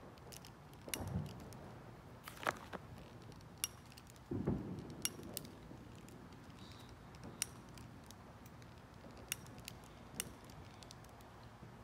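Long-neck utility lighter's igniter clicking over and over at uneven intervals, held to a firework's fuse to light it. There are two duller knocks, about a second in and about four seconds in.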